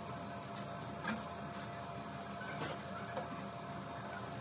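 Steady low machine hum in a workshop, with a few faint clicks of small metal parts being handled.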